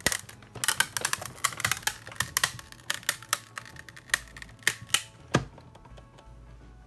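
Sizzix hand-cranked die-cutting machine being turned, pressing a plate sandwich with a metal edge die and an acetate sheet through its rollers. It gives a rapid, irregular run of sharp clicks and cracks that stops with a low thump about five and a half seconds in.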